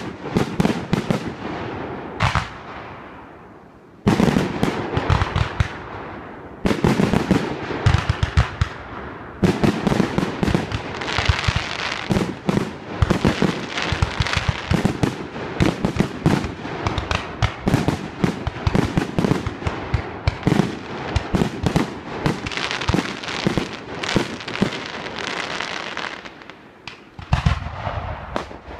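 Aerial fireworks bursting and crackling: a dense, rapid run of bangs and crackles, with short lulls about four seconds in and again near the end.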